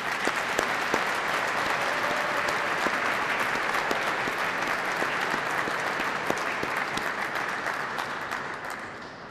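Audience applauding: steady clapping that fades away near the end.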